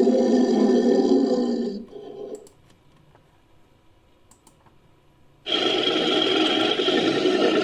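Designed Ankylosaurus creature sound effect: a loud, low growling call that dies away about two seconds in, a pause, then another loud call that starts abruptly about five and a half seconds in.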